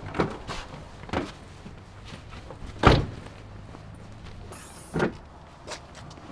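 Footsteps on pavement and a few knocks and clunks as a car's rear door is opened, the loudest a sharp clack just before three seconds in.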